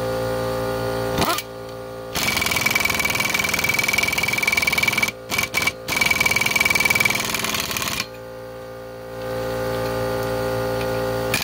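Impact wrench hammering for about six seconds, with two brief let-offs midway, running a lug nut down over a washer to draw a wheel stud fully into the hub. An air compressor hums at the start and again near the end.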